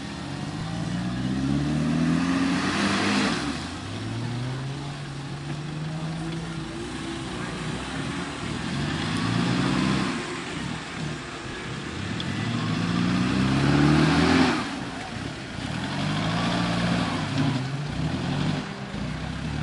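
Off-road 4x4 vehicle's engine revving hard again and again, its pitch climbing in about five surges with short drops between. The loudest surge comes about two-thirds of the way through and is cut off sharply.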